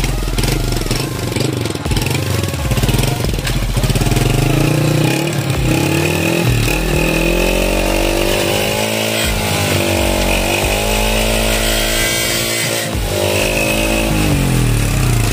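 Honda TMX 125 Alpha's single-cylinder four-stroke engine running, revved up and down several times, its pitch rising and falling.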